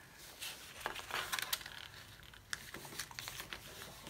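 A sheet of A4 paper being folded and pressed flat by hand: irregular rustling and crinkling with scattered crisp taps.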